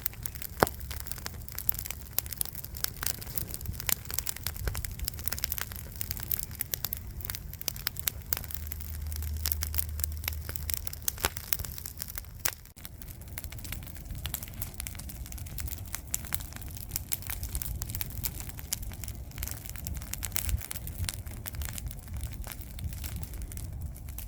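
Wood campfire crackling, with dense irregular pops and snaps over a low rumble.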